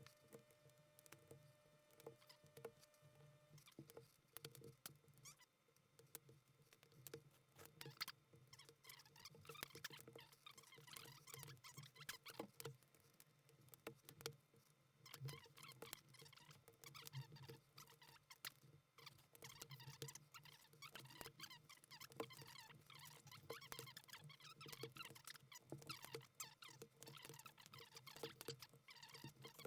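Rapid, sped-up clicking and tapping of plastic keycaps being pulled off and pressed onto a mechanical keyboard's switches. The clicks come thick and irregular, with a faint steady hum underneath.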